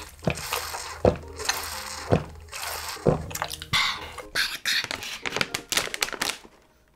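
Gulping from a plastic drink bottle, four swallows about a second apart, followed by the crinkling and tearing of a foil snack bag being opened.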